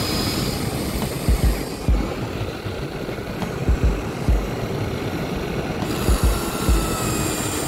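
Electric motors and gears of a Huina remote-control toy excavator whirring as it digs sand, under background music, with irregular low thumps.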